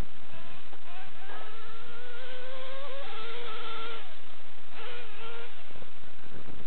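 Dynamite .28 big block nitro engine in a Traxxas Revo RC truck, running under throttle with a buzzing whine that rises and falls. The pitch climbs steadily from about a second in, drops back around three seconds, and surges again briefly near five seconds.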